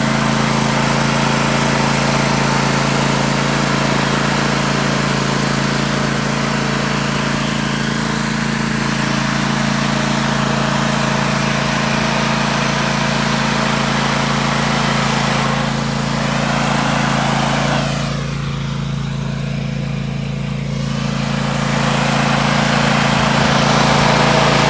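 Zero-turn riding lawn mower's engine running steadily as the mower is driven. The sound briefly goes duller and a little quieter about three-quarters of the way through, then picks back up.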